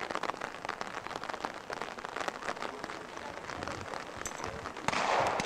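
Rain pattering, with many irregular small ticks over a steady hiss, and a louder rush of noise near the end.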